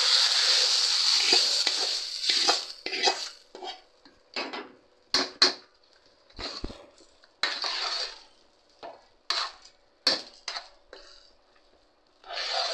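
Hot oil tempering of pepper, cumin, cashews, ginger, chillies and curry leaves poured onto cooked pongal, sizzling loudly for about the first two seconds and then dying away. After that a ladle scrapes and clinks against the metal pressure cooker in separate strokes, with a few sharp taps, as the tempering is mixed in.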